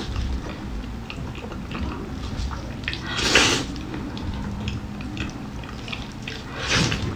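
Close-up wet chewing and sucking sounds of eating tender braised pork knuckle, with many small lip smacks and two louder wet sucks, one about three seconds in and one near the end.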